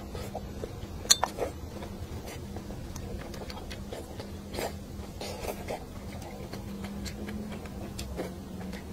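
Eating spicy braised fish: scattered small clicks of wooden chopsticks and mouth sounds as pieces are lifted and chewed, with one sharp click about a second in. A steady low hum lies underneath.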